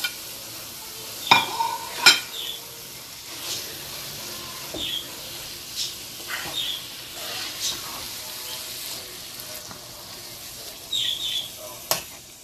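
A metal spoon stirs and scrapes a thick mashed-carrot mixture around a nonstick frying pan, with sharp taps against the pan about one and two seconds in, over a steady frying sizzle.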